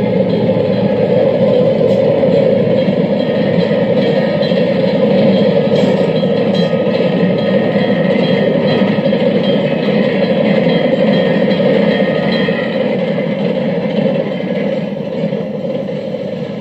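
A railway train running past close by, steady and loud, then fading away over the last few seconds.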